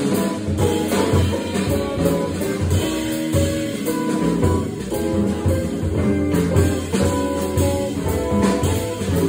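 Jazz organ trio playing: electric guitar lines over organ with sustained low bass notes, and a drum kit keeping time.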